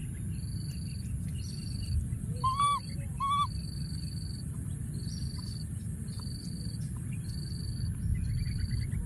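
Baby macaque giving two short, high, arching calls about a second apart, a couple of seconds in. Under the calls, insects sing in shrill pulses about once a second over a steady high hiss, with a low rumble beneath.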